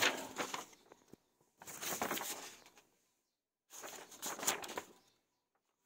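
Printed paper shipping waybills rustling as they are handled and flipped, in three short bursts about a second apart.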